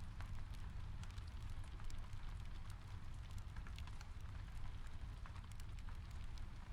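Steady soft rain mixed with a crackling fireplace: a low, even rumble under a light hiss, with many small sharp crackles and pops scattered throughout.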